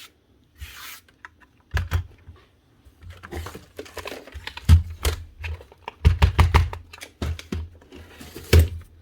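Clicks, knocks and scraping as plastic parts of a cordless strimmer's head are handled and picked at to clear out jammed strands of plastic, with a quick run of taps about six seconds in.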